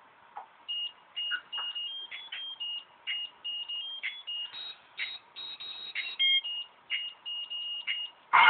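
A quick stop-start run of thin, high electronic beeps on three or four different pitches, forming a simple digital tune. Much louder full music comes in right at the end.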